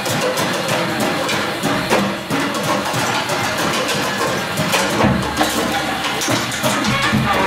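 Live improvised music: a drum kit struck with sticks in irregular hits, over a dense, noisy wash of sound, with a saxophone playing.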